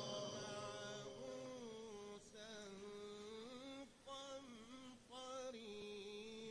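Faint man's voice humming a slow, wavering melodic line in short phrases, with brief breaks between them.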